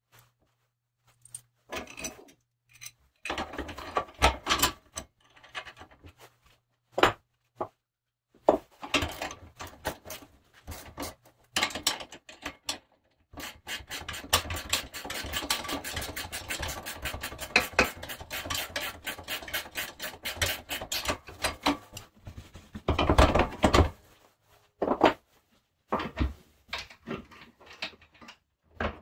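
Loose bolts, washers and a spacer clinking against the steel plow-mount bracket, then a ratchet wrench clicking rapidly and evenly for about seven seconds as the lock nut is run down on the lift lever's pivot bolt. A louder clatter of metal parts follows near the end.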